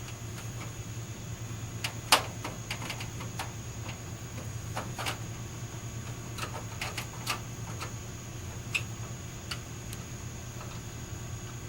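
Irregular light clicks and taps of small hard parts being handled, the sharpest about two seconds in, over a steady low hum and a faint high whine.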